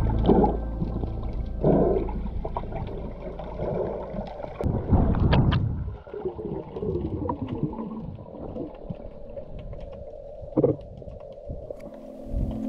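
Muffled underwater sound picked up by a GoPro in its waterproof housing: a low rumble of water with irregular bubbling and gurgling bursts.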